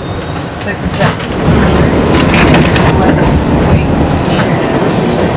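R68 subway train running out of a station. A high wheel squeal stops about a second in, and the loud rumble and clatter of the wheels and car grows as the train picks up speed.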